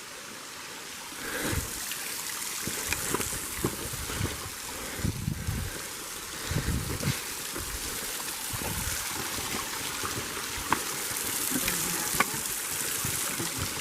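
A small stream running and trickling, with scattered low thumps and a few sharp clicks over it.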